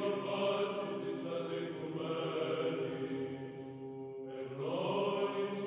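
Background music of slow sung chant: long held notes sung together, with a new phrase beginning about four and a half seconds in.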